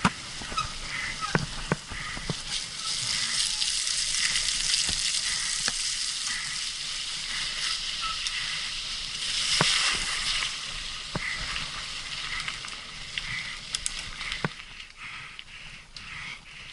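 Mountain bike rolling over a dirt and gravel trail: a steady crunching hiss from the tyres, with scattered clicks and knocks from the bike rattling over bumps. It fades somewhat near the end.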